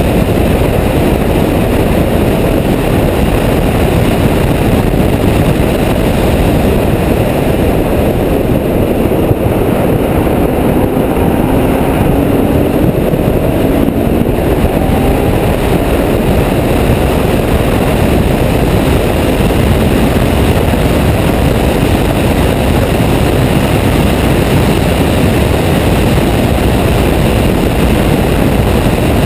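Heavy wind buffeting on a microphone mounted outside a Ferrari F12berlinetta at track speed, a steady loud rush that masks most of the car. The V12 engine comes through only faintly, its note rising partway through.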